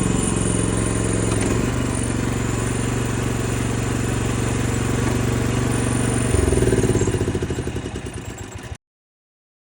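Mini excavator's small engine running steadily, its pitch dropping a step about one and a half seconds in and again past six seconds; it is then shut off, the firing slowing and fading before stopping near the end.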